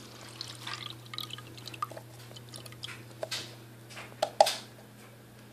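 Water pouring and dripping from a small plastic squeeze bottle into a bowl of glue, in small irregular splashes and drips. There are a few sharper, louder plops or taps a little after four seconds in, as the upturned bottle is emptied.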